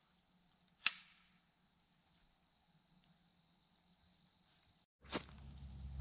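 Steady high-pitched trilling of crickets, with one sharp knock about a second in. Near the end the sound drops out for a moment, then another click, and a low rumble starts.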